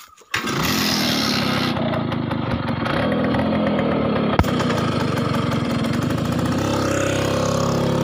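Bajaj M80 engine running steadily at idle, with one sharp click about four seconds in.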